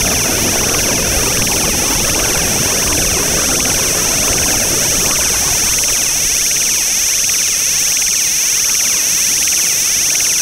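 Loud, steady, unchanging noise drone with a bright high hiss running through it.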